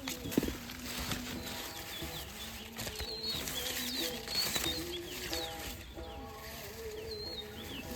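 Small birds chirping with many short, quick calls, and a single sharp knock about half a second in.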